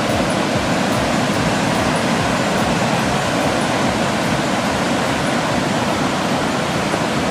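Waterfall heard up close: a loud, steady rush of falling water.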